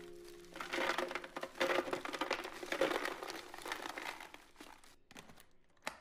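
Crinkling and crackling handling noise, a dense run of small crackles for about four seconds that fades out near the end, with faint background music at the start.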